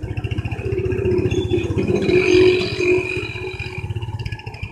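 A vehicle's engine running with a rapid, even low pulsing as it drives along, heard from on board. A higher steady whine rises over the middle couple of seconds.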